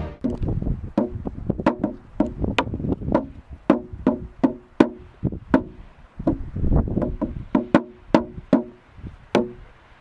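Hand-held frame drum with a hide head, struck with a beater about twice a second. Each beat rings briefly with a low tone.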